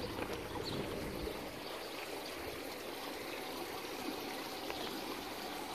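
Swimming-pool water trickling and running steadily, an even rushing sound with no pauses.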